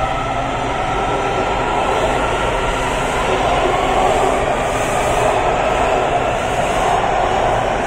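Washington Metro 7000-series subway train running past the platform, a steady rush of wheel and motor noise that swells a little as the train picks up speed.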